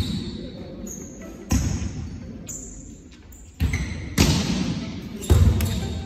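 Volleyball rally in a large sports hall: several sharp hits on the ball and thuds, each ringing on in the hall's echo, the loudest about five seconds in.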